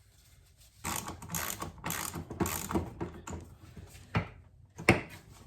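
Ratcheting metallic clicks at a push mower's drive wheel as it is put back together, a quick run of clicks for about three seconds and then two sharp clicks, the second the louder.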